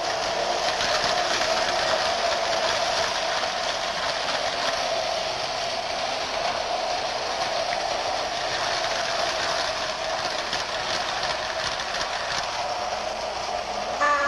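Toy electric train running steadily around its track, its motor and wheels on the rails making a continuous mechanical sound.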